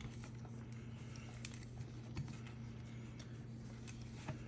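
A few faint, scattered clicks and taps from small parts being handled, over a steady low hum.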